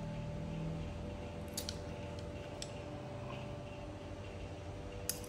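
A metal spoon clinking against ceramic bowls three times, short sharp clicks, over a steady low hum.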